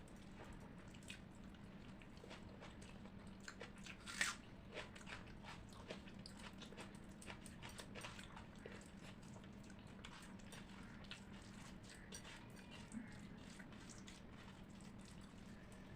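Faint, close-miked eating sounds: chewing and wet mouth clicks from a person eating rice with chicken curry, with one louder smack about four seconds in. A steady low hum runs underneath.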